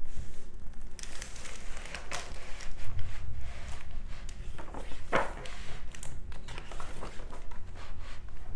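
Hands opening a hardcover picture book and turning its pages on a tabletop: paper rustling and small handling clicks, with one louder page-turn swish about five seconds in.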